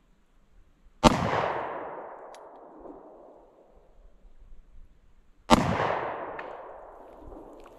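Two shots from a Bond Arms Rough and Rowdy derringer firing .45 Colt 200-grain semi-wadcutter rounds, one about a second in and the other about four and a half seconds later. Each sharp crack rings out into an echo that fades over a couple of seconds.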